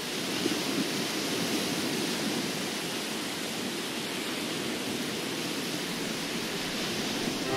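Steady, even rushing noise with no tone or rhythm, cutting in abruptly as the music stops.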